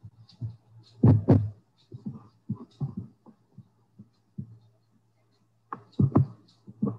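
Scattered low thumps and knocks picked up by a computer microphone, with two loud ones close together about a second in and another pair near the end, over a steady low hum.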